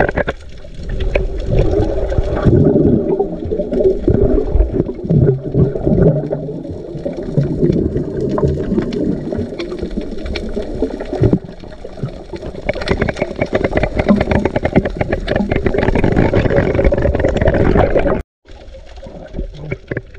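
Underwater sound picked up by a submerged camera: muffled water movement from swimming divers, with many small crackling clicks. It drops out abruptly near the end and comes back quieter.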